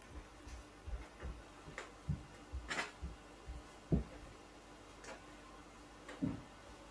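Irregular light clicks and soft knocks, a few a second and unevenly spaced, over a faint steady hum; the loudest knock comes about four seconds in.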